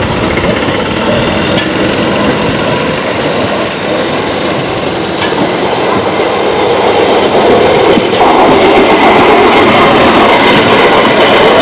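Golf carts fitted with rail wheels rolling along old steel rails: a steady rumble of small wheels on the track, with occasional sharp clacks over rail joints. It grows louder from about eight seconds in as the carts come closer.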